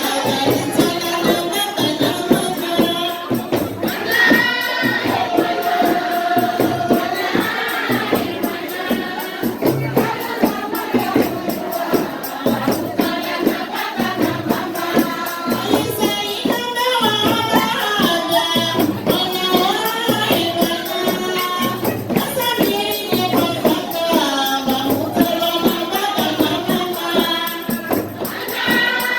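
Algerian wedding song: several voices singing together over a steady beat of hand percussion with jingles, like a tambourine or frame drum.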